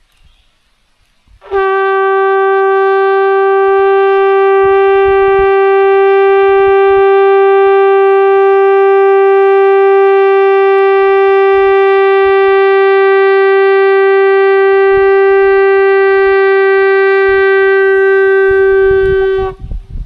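A ram's-horn shofar blown in one long, steady note, starting about a second and a half in and held for about eighteen seconds before it stops near the end.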